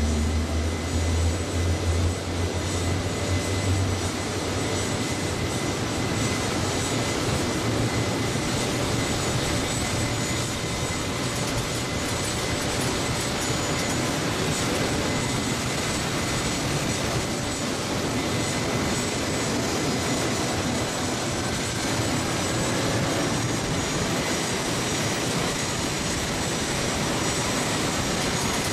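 P-51D Mustang's Packard Merlin V-12 engine idling on the ground, its propeller turning slowly, a steady running sound. The deepest part of the sound eases a few seconds in, then holds even.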